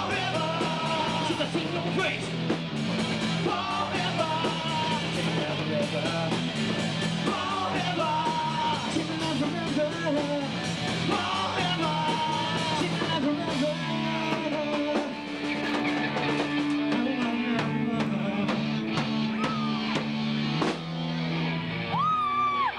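Live rock band playing loud electric guitar, bass and drum kit, with a voice singing over it.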